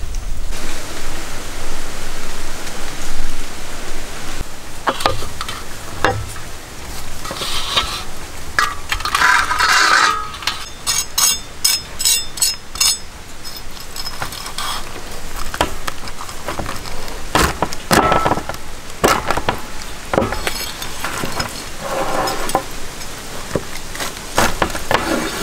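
Cooking sounds: metal utensils clinking, knocking and scraping against pots and dishes, over a steady sizzling hiss, with a quick run of clinks about halfway through.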